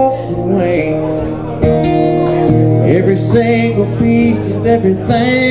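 A man singing live to his own strummed acoustic-electric guitar, the guitar ringing steadily under the vocal lines.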